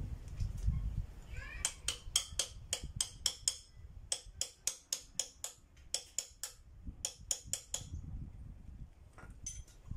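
Quick, light metallic clicks, about five a second, in three runs with short pauses and a couple more near the end, from a hand tool worked at a motorcycle's upper fork clamp while the front fork is being fitted.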